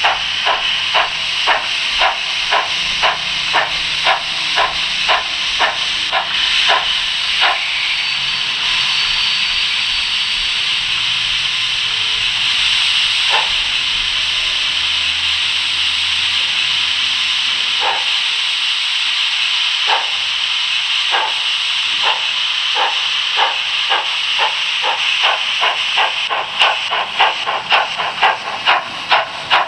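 H0 model train running along the layout, heard from on board: a steady hiss with regular beats, about two to three a second. The beats slow and fade to the hiss alone after several seconds, with only an odd beat, then return near the end and quicken.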